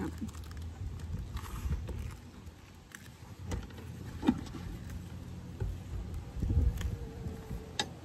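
Wooden hive frames and a hive tool knocking and clicking a few times while a beehive is worked, over a low steady rumble.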